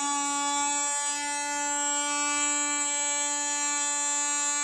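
Small electric motor of a portable cup blender running steadily with an empty jar, a loud, even high-pitched whine.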